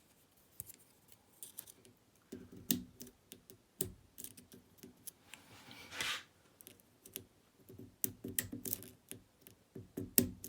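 Light metallic clicks and taps, irregular and scattered, as a pick pushes the sliders of a Fontaine 7-slider pump lock held under a wire tensioner.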